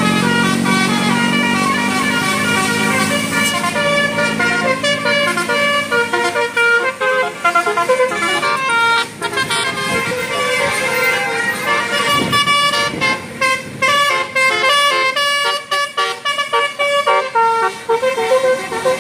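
Bus telolet horn, a Basuri-type multi-trumpet air horn, playing a fast tune of quickly changing notes. About halfway through the tune turns choppier, with short breaks between notes.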